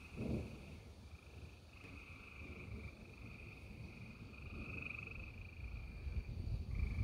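Chorus of trilling frogs, a steady high trill that breaks off and starts again several times. A short low thump comes just after the start, and a low rumble builds toward the end.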